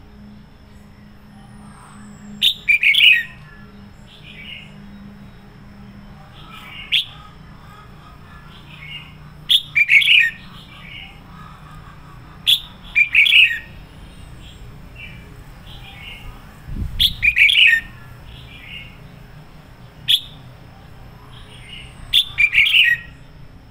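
Red-whiskered bulbul singing short, loud bursts of warbled song every two to four seconds, some bursts only a single sharp note.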